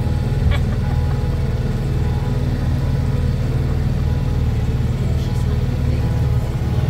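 Small motorboat's engine running steadily as the boat cruises along, heard from on board.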